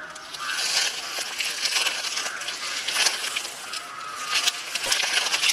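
Dry grass and leaves crunching and rustling: a dense crackle of many small sharp snaps, unbroken throughout.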